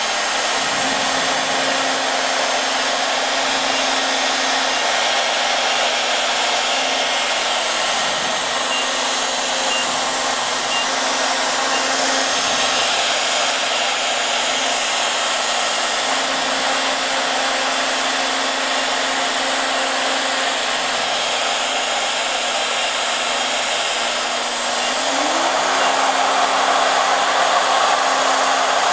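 Festool Shaper Origin handheld CNC router with its spindle running as it cuts out letters in wood, together with a dust extractor drawing through the router's shroud. It makes a steady whirring rush with a hum whose pitch shifts slightly now and then and steps up briefly near the end.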